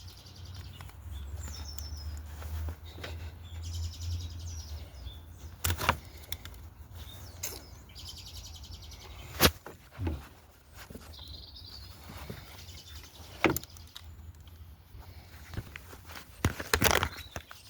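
Scattered sharp clicks and knocks of hand work on an engine, a handful of them a few seconds apart, as parts and wiring clips are handled. Birds chirp faintly in the background.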